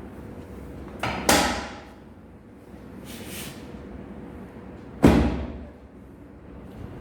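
Two sharp thuds from a chiropractic adjustment thrust, about four seconds apart; the first comes as a small knock followed at once by a louder one. A brief soft hiss falls between them.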